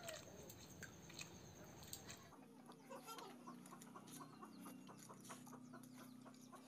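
Faint sounds of eating rice by hand from a steel plate, with light clicks of fingers and rice against the plate, and hens clucking faintly in the background.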